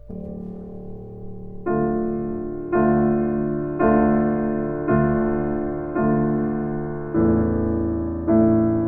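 Piano music: a soft held chord, then chords struck about once a second, each starting sharply and fading away.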